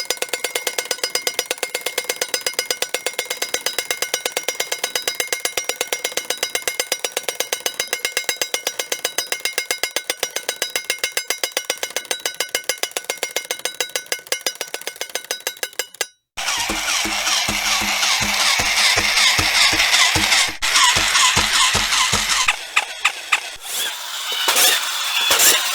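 A mechanical toy clicking rapidly and evenly with a metallic ring for about sixteen seconds. After a brief break, a second toy's motor whirs and rattles, with a few separate clacks near the end.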